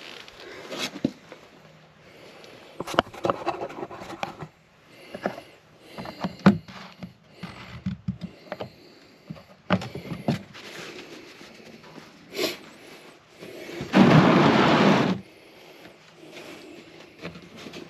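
Plastic oil drain pan being handled and capped: scattered knocks and clicks. About two thirds of the way through comes a louder rush of noise lasting about a second.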